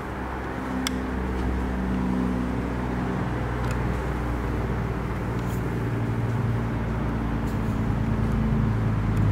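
Road traffic: a motor vehicle's engine running low and steady, growing gradually louder toward the end, with a light click about a second in.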